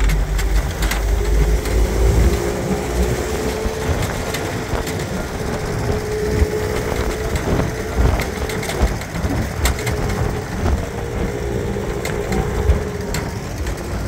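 1955 Land Rover Series I, with its just-over-2-litre petrol engine, running as it drives along the road. It has a steady whine and heavy wind buffeting on the microphone through the folded-down windscreen, with occasional sharp clicks.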